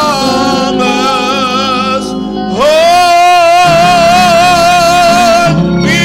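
A man singing a slow church song, holding long notes with a wavering vibrato over keyboard accompaniment. About two and a half seconds in he scoops up into a new high note and holds it for about three seconds.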